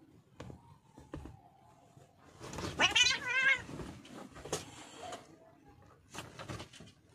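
A cat gives one loud, wavering yowl about three seconds in, lasting about a second, with soft thumps and rustles from cats wrestling on bedding around it.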